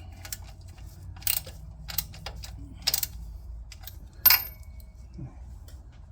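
Metal hand tools clinking and clicking against each other and the engine, a handful of sharp clinks with the loudest about four seconds in, as the water pump bolts are run in and lightly torqued.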